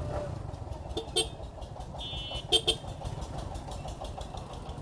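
Suzuki Gixxer 155's single-cylinder engine running steadily under way. Two short horn toots about a second and two and a half seconds in are the loudest sounds.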